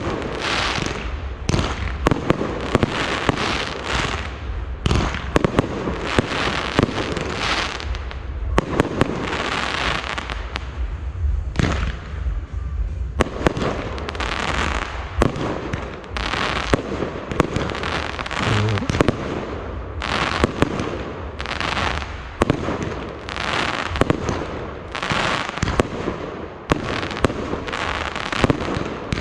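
Fireworks display: shells bursting in quick succession, sharp bangs every second or less with crackling and hissing between them.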